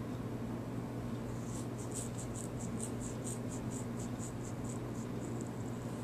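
Fingers scratching a beard: a run of short, quick scratches about four a second, starting about a second and a half in and lasting some four seconds, over a steady low hum.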